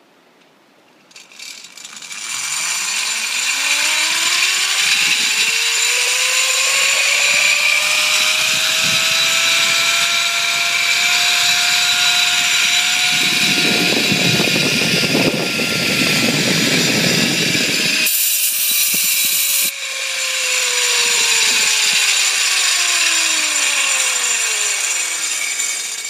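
Zip line trolley's pulley wheels running along a steel cable: a loud whirring whine that climbs in pitch as the rider picks up speed, levels out about halfway through, then falls away as the rider slows near the end, over a steady hiss.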